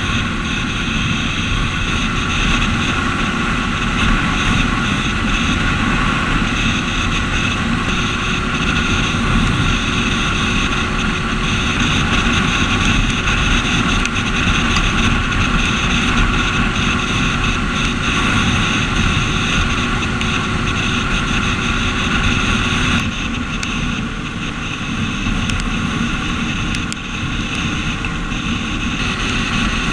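Motorcycle riding at speed, its engine running steadily under heavy wind noise on the camera microphone. About two-thirds of the way through the sound drops a little in level.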